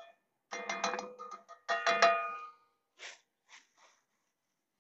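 Metal cookware on a camp stove clanking, a quick run of strikes and then a louder clank about two seconds in, each ringing on briefly, followed by a few faint rustles.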